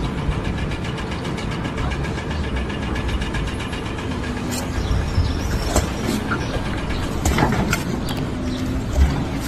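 An engine running steadily with a fast, even pulse, and a few sharp knocks in the second half.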